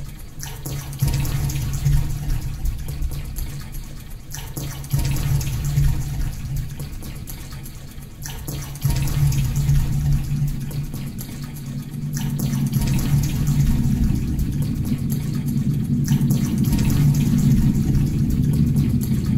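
Low, rushing water-like sound over a steady low hum, swelling suddenly three times and fading back between, then building up through the second half: an ambient sound score accompanying a dance.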